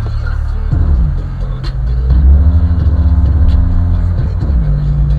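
Brazilian rap track playing loud on a car sound system, its heavy bass holding long notes that slide down and up between pitches, with light clicking percussion above.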